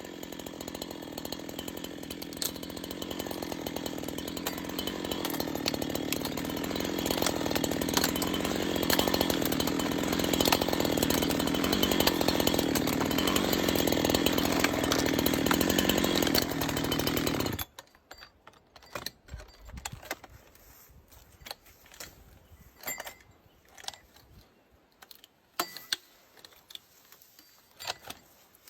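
A power tool running steadily on wood, building slightly in loudness, then cutting off suddenly after about seventeen seconds. Light scattered taps and clicks follow.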